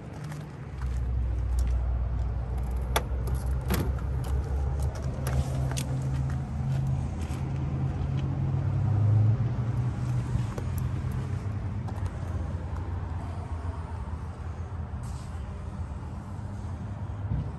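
A motor vehicle engine running, heard as a steady low hum that starts about a second in, swells around nine seconds in and then slowly eases off. A few sharp clicks come in the first half.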